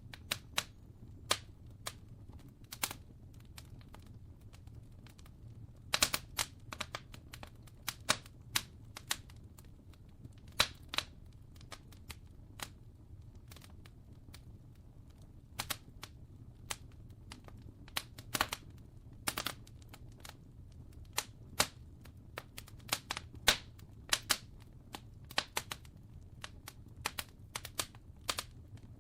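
Wood fire crackling: irregular sharp pops and snaps, some in quick clusters, over a low steady rumble.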